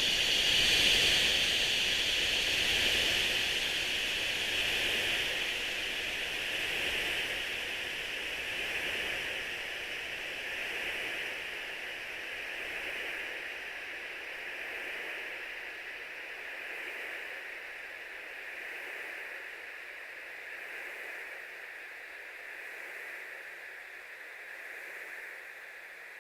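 Tinnitus sound-therapy noise: a steady hiss concentrated in a high band over a softer, broader rush, slowly fading out.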